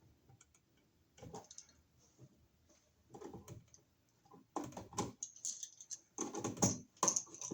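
Irregular small clicks, taps and scrapes of a wall receptacle and its wires being handled while the wires are fitted to its terminal screws, sparse at first and busier after about four and a half seconds.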